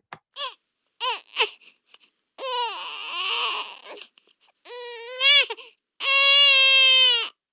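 Sound effect of a baby crying: a few short whimpers, then longer wavering wails, ending in one long, loud held wail.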